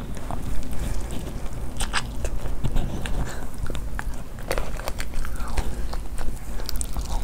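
A person biting and chewing food close to the microphone, with scattered sharp crunches and clicks.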